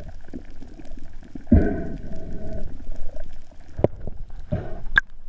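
Muffled underwater noise. A bubbling rush with a held tone comes about one and a half seconds in and lasts about a second, and two sharp clicks come near the end.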